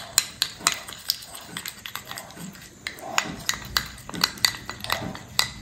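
A spoon stirring a thick wheat-flour paste in a small glass bowl, clicking and scraping against the glass in an irregular run of several ticks a second.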